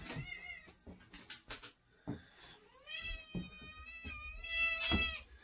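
Domestic cat meowing: a short meow right at the start, then one long meow from about three seconds in until near the end.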